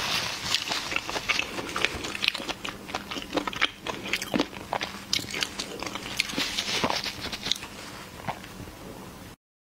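Close-miked chewing of crisp prawns in chilli sauce: many sharp crunches and wet mouth clicks, several a second, cutting off suddenly near the end.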